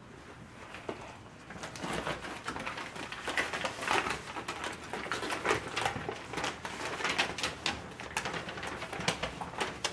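Sheets of paper rustling and crackling as several people unfold letters, a dense run of quick crinkles starting about a second and a half in.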